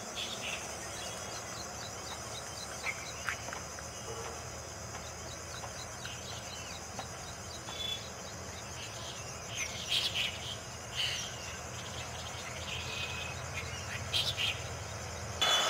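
A steady, pulsing high-pitched insect chorus, with scattered short bird chirps over it. A louder noise cuts in right at the end.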